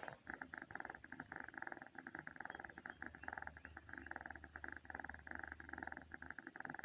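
Snoring: a faint, continuous, finely pulsing rasp with only brief breaks, and no pause between breaths.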